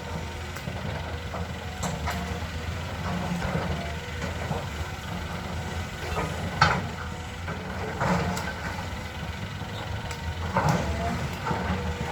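Excavator's diesel engine running steadily with a low rumble, with a few sharp knocks from the machine's work.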